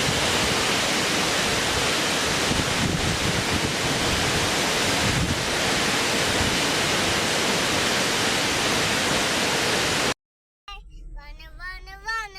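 Loud, steady rush of a fast-flowing river, cutting off suddenly about ten seconds in. After a brief silence a child starts singing near the end.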